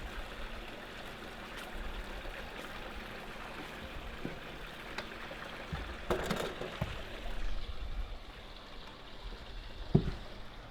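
Campfire hissing steadily as it smoulders, with a few sharp crackles and pops.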